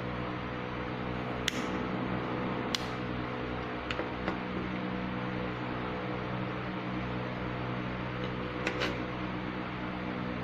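A few sharp clicks of a lighter being flicked, to burn through the polyester crochet yarn, twice in the first three seconds, a pair about four seconds in and two close together near the end. Under them runs a steady electrical hum.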